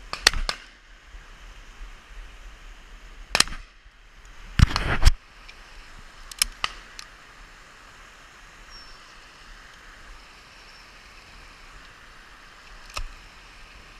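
Shotgun shots at driven partridges, sharp reports in quick pairs and singles: a double right at the start, more about three and a half, five and six and a half seconds in, and a fainter one near the end. A hill stream rushes steadily underneath.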